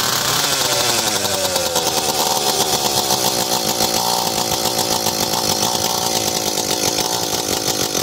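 Echo CS-310 chainsaw's small two-stroke engine running steadily after it has just come back to life on the starter pull. Its speed drops and settles in the first couple of seconds, then holds even.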